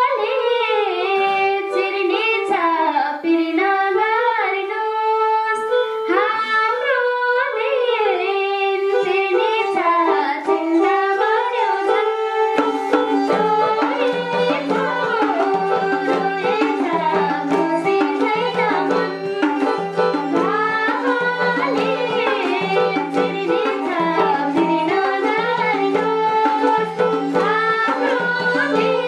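Nepali folk dohori music played on madal hand drum, sarangi and keyboard, with a bending melody line on top. About halfway through, a low bass figure repeating in an even rhythm comes in under the melody.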